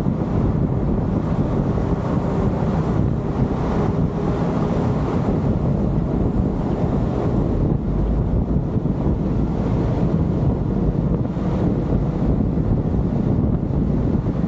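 A car driving on the road: a steady low road and engine rumble with wind on the microphone, and a faint thin high whine that drifts slightly up and down in pitch.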